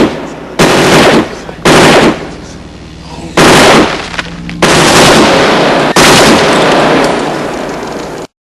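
Machine gun firing in short bursts of rapid shots, five in all, the last two longer, each followed by a fading echo. The firing stops abruptly near the end.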